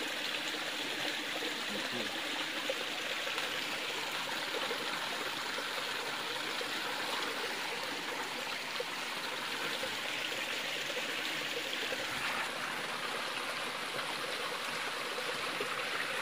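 Stream water flowing steadily over rocks, an even, unbroken hiss.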